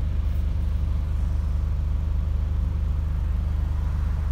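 Scania Omnidekka double-decker bus's diesel engine running steadily while the bus is under way, a low drone heard from inside the upper deck.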